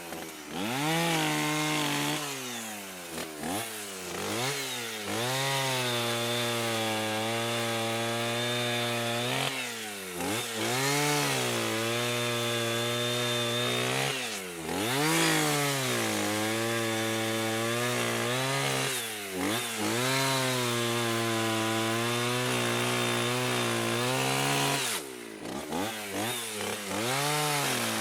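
Chainsaw engine running hard, its pitch repeatedly dropping and then climbing back up, about half a dozen times, between stretches of steady high revs.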